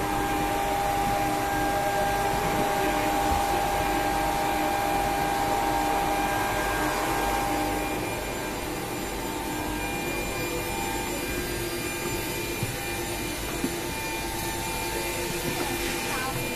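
Steady whirring air noise of fans and ventilation inside an Airbus A380 fuselage, with a few steady hums running through it. It is louder for the first half and eases about eight seconds in, with a couple of faint clicks.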